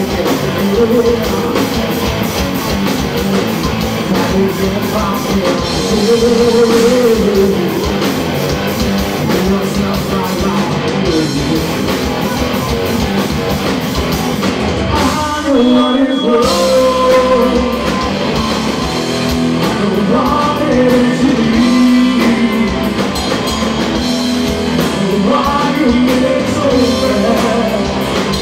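A rock band playing live, with distorted electric guitars, drums and a singer's voice. There is a brief drop in the band's sound about fifteen seconds in before it comes back in full.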